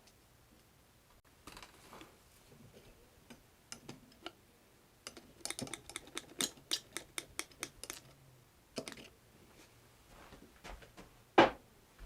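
Small steel parts of a lathe saddle gib being handled and fitted by hand: scattered light clicks and taps, a quick run of ticks in the middle, and one sharp knock near the end.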